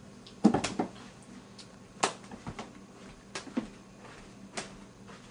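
Someone handling things and moving about a room: about seven light knocks and thumps, spread irregularly over the seconds, the loudest about half a second in and again about two seconds in.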